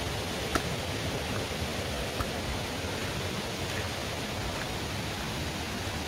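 Steady rushing noise of stream water flowing down from the waterfall, with one small click about half a second in.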